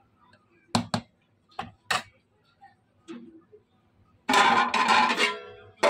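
A metal spoon clinking against a steel cooking vessel of pulao, four sharp clicks in the first two seconds. More than halfway through comes a louder burst of sound with several held tones, lasting about a second, music-like.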